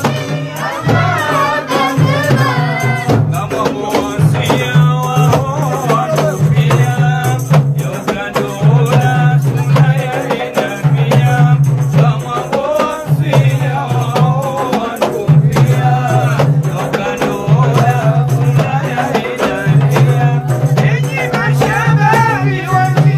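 Group singing of a traditional song by boys and men through a microphone, accompanied by frame drums and a jangling rattle-like percussion, with steady rhythmic strikes throughout.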